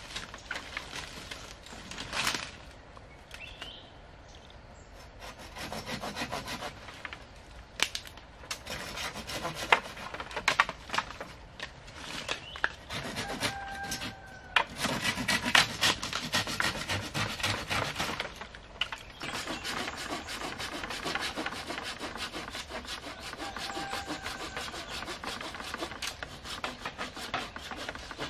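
Hand pruning saw cutting through bamboo canes in rapid back-and-forth strokes, starting a few seconds in, with occasional sharp knocks from the canes.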